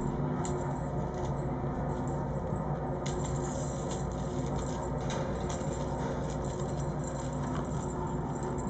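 Steady low room hum with scattered light ticks and rattles from a wand cat toy as cats bat it about on a concrete floor.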